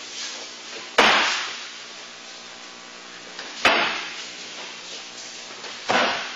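Three full-power low kicks landing on a large kick shield: sharp slaps about two and a half seconds apart, each trailing off in a short echo.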